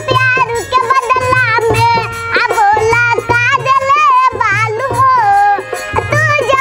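A young girl singing an Indian folk-style song with a wavering melody over instrumental accompaniment and a steady drum beat.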